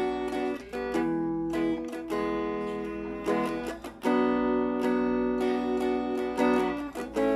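Thomson Stratocaster-style electric guitar played through a Laney amplifier in a clean tone: strummed chords left to ring, with a new chord struck roughly every one to two seconds.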